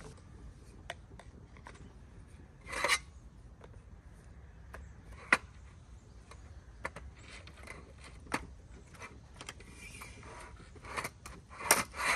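A small camping stove and its wooden stand being handled and set down on a camp table: scattered clicks and knocks, with a brief louder clatter about three seconds in and a cluster of clatters near the end.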